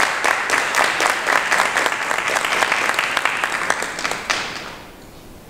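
Audience applauding, dense clapping that dies away about four and a half seconds in, with a single knock just before it ends.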